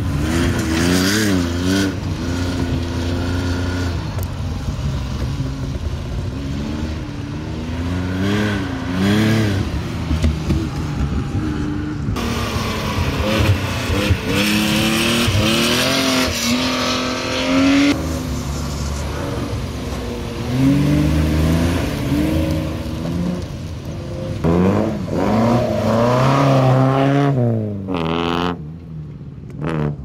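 Historic rally cars, among them early Porsches, driven hard past one after another on a dirt stage, engines revving up and dropping back again and again with each gear change and lift off the throttle.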